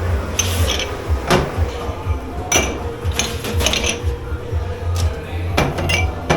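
Crockery, pots and cutlery clattering and clinking during dishwashing, a string of sharp knocks, several with a short metallic ring, over a steady low machine hum.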